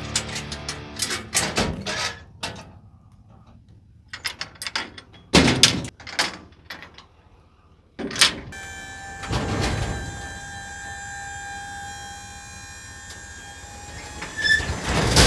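Clanks and knocks as a Kaufman dump trailer's rear gate is unlatched. About eight seconds in, the trailer's electric hydraulic pump starts with a steady whine as the bed tips up. Near the end the load of ash logs slides out with a heavy thud.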